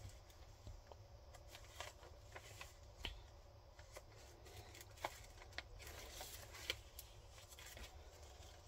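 Faint rustling of paper pages being turned by hand in a thick journal of vintage papers, with a few soft ticks as the pages and tucked-in cards are moved.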